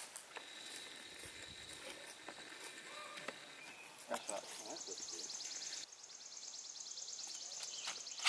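Outdoor ambience with insects buzzing in fast, even pulses, with a steady high whine during the first few seconds and a few faint clicks. A sharp knock comes right at the end.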